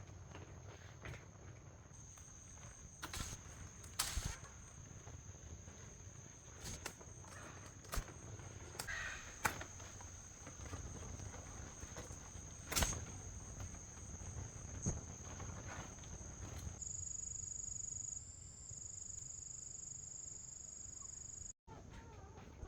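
Insects, crickets or the like, trilling steadily on one high pitch. Scattered light knocks and rustles, the loudest about 4 and 13 s in, are likely footsteps or handling. The insect sound changes to a different, two-pitched trill about 17 s in.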